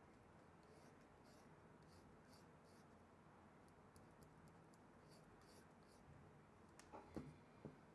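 Near silence, with faint light scratching from small tools working on a phone circuit board while it is cleaned, and a few soft clicks and taps near the end.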